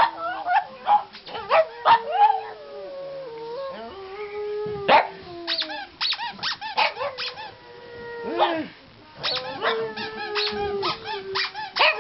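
Pugs howling in long, wavering howls, with many short, sharp high sounds between them.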